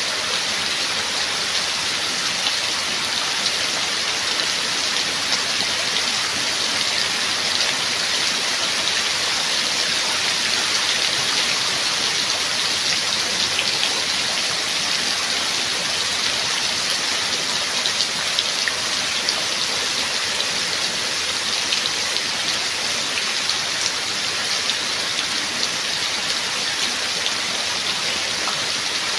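Steady rain falling, an even hiss sprinkled with many small individual drop ticks.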